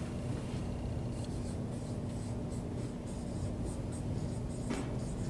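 Dry-erase marker writing on a whiteboard: short, irregular squeaky strokes as words are written.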